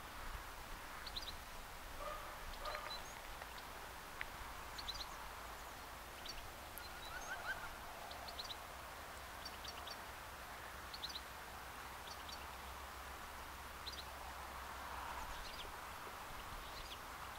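Faint outdoor birdsong: small birds giving short high chirps, often two or three in quick succession, repeating every second or two, over a steady low rumble in the background.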